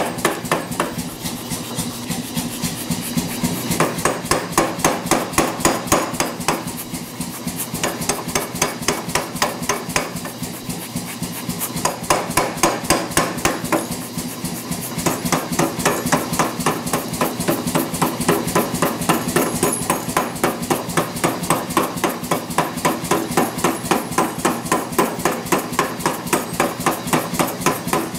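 Power hammer pounding a red-hot 3/4-inch steel bar in rapid, steady blows, several a second, drawing out the tong reins. A steady machine hum runs underneath.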